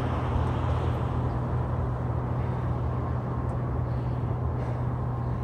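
Steady low hum under an even wash of outdoor background noise, with no distinct events.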